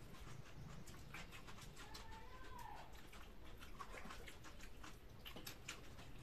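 Quiet eating sounds: many small wet clicks and smacks from chewing and from fingers mixing rice, dal and bharta on steel plates.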